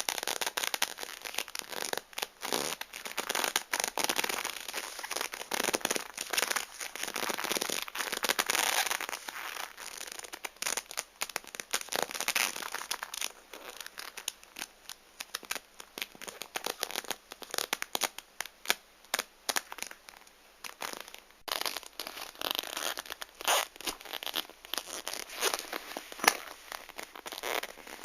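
Black leather glove rubbing and sliding over shiny material, giving an irregular run of squeaks and crinkling crackles with many sharp little clicks.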